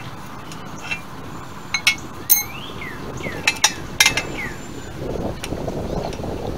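Steel hand tools clinking as a socket and breaker bar are fitted onto a seized wheel lug nut and knocked against the steel jack stand, with several sharp metallic clinks about two and four seconds in.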